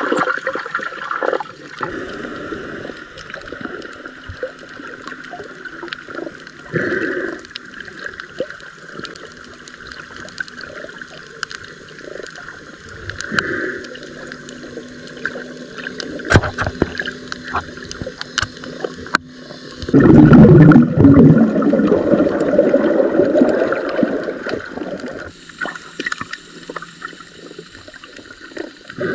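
Muffled underwater water sound as picked up by a submerged camera while snorkeling: gurgling and sloshing with scattered small clicks. About twenty seconds in comes a louder low rush of splashing and bubbles lasting a few seconds.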